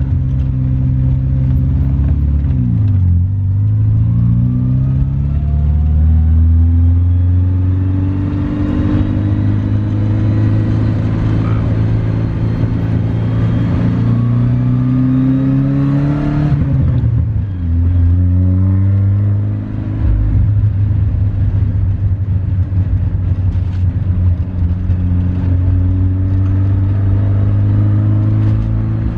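Toyota Starlet engine heard from inside the cabin, pulling through the gears: the revs climb, drop at a gear change about three seconds in and again a little past halfway, then hold fairly steady as the car cruises. The car has an exhaust leak.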